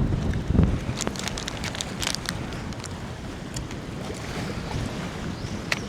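Wind buffeting the microphone with a low rumble, easing off after the first second or so, over water sounds, with scattered small clicks and one sharp click near the end.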